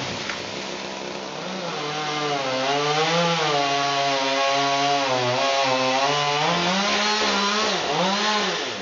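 Powered pole saw cutting into a dead pine trunk, its motor pitch wavering as the chain bites into the wood. Near the end the pitch dips and rises twice, then falls away.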